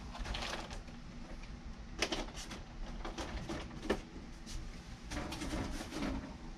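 Handling noises: a large boxed figurine set with a plastic window is put down and items are shuffled in a box, with soft rustling and a few light knocks, the sharpest about two seconds in and near four seconds in.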